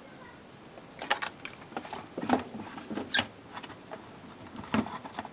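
Irregular clicks, taps and short rustles of objects being handled, starting about a second in and stopping shortly before the end, with the sharpest clicks around the middle and near the end.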